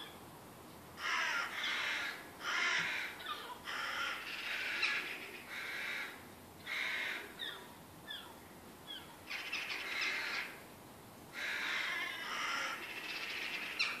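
A flock of crow-family birds cawing in repeated harsh bouts, with a few short thin chirps about halfway through: mobbing calls at a cat that has climbed into their tree.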